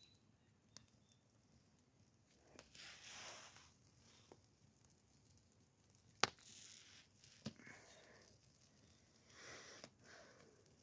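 Near silence broken by a few faint rustling swishes and a couple of sharp clicks; the loudest click comes about six seconds in.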